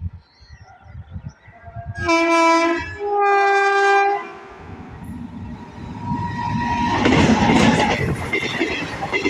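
Indian Railways locomotive horn sounding two long blasts about two seconds in, the second at a higher pitch. From about five seconds on, an express train's rushing noise swells as it comes past at high speed.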